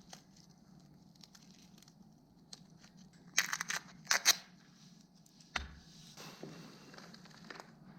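Hand work on slingshot materials: short, sharp tearing or cutting strokes, loudest in two quick bunches around the middle, then a single knock and a few softer rasping strokes.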